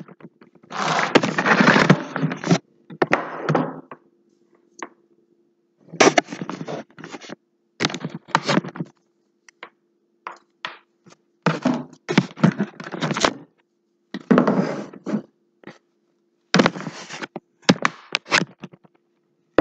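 Scraping and knocking on a rusty metal hammer as rust is worked off it, in bouts of one to two seconds with short pauses between.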